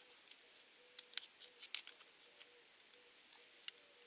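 Small clicks and scratches of a thin steel knife blade working against the plastic body and spring wire terminals of a power-drill trigger switch, pushing the terminal's retaining plate aside to release a wire. Most of the clicks come between about one and two seconds in, with one more near the end.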